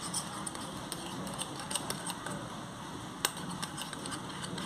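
A small steel spoon clinking and scraping against a stainless-steel cup while stirring, in quick irregular light clicks, with one sharper clink about three seconds in.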